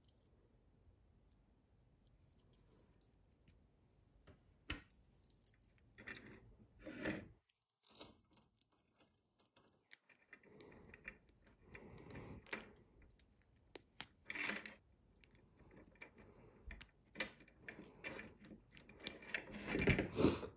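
Quiet, irregular small metallic clicks and clinks of fishing pliers opening split rings and working treble hooks off a plastic fishing lure, with the loudest handling near the end.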